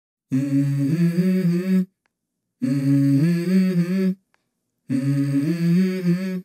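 Song intro: three short phrases of hummed, harmonised voices, each about a second and a half long, with a clean silence between them.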